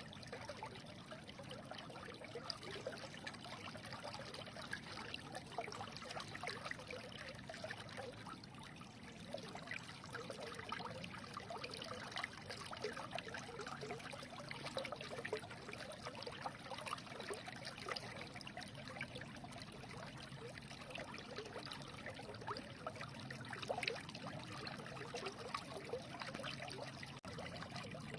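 Stream water flowing in a steady, trickling babble.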